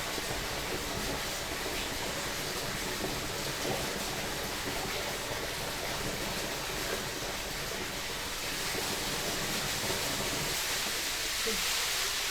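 Jungle stream flowing steadily, a constant rushing and babbling of water.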